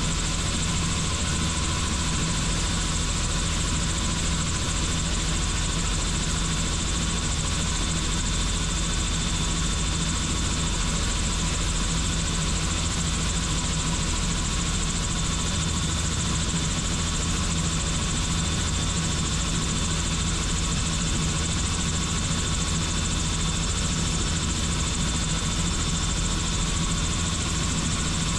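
Helicopter in steady flight: a continuous drone of rotor and engine noise with a deep, even hum and a thin steady whine above it.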